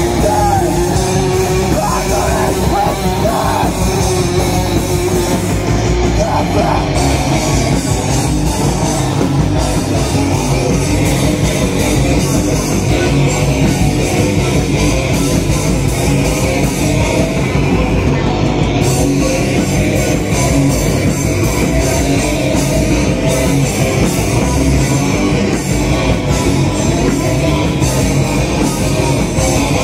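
A live rock band playing loud, steady heavy rock: distorted electric guitars, electric bass and a drum kit.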